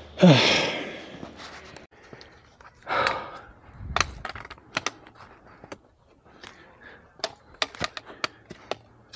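A hiker scrambling up big rocks: a loud effortful exhale falling in pitch right at the start, another heavy breath about three seconds in, and a low thump near four seconds. After that comes a string of sharp clicks and knocks of hands, boots and gear against rock.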